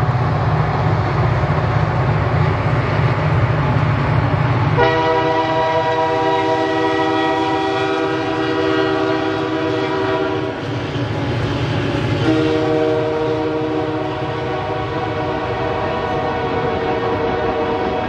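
Multi-chime air horn of a diesel freight locomotive sounding two long blasts, a chord of several notes: the first starts about five seconds in, breaks off near the middle, and the second follows and holds almost to the end. A low rumble comes before the horn, and the train's running noise continues under it.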